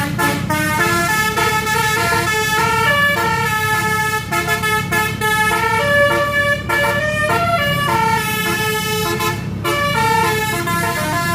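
Tour bus's 'basuri' telolet horn playing a tune: a string of bright horn notes that change pitch every fraction of a second, over a steady low rumble.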